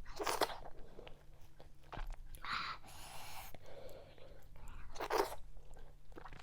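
A person eating fufu with okra and vegetable soup, chewing close to the microphone in several short bursts, the loudest near the start and about five seconds in.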